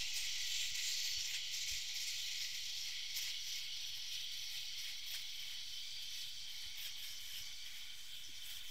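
Homeasy LK2800 electric head shaver running and cutting chin stubble, sped up into a steady high hiss that gets slightly quieter toward the end.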